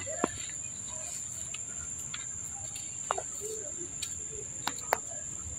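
Steady high-pitched insect chorus, with four sharp brief clicks: one just after the start, one about three seconds in and two close together near the end.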